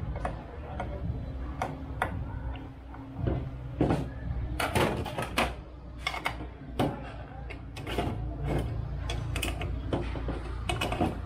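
Irregular sharp clicks and knocks of metal tools and parts being handled while the oil pump cover on an engine's timing cover is fitted and its bolts tightened, over a low steady hum.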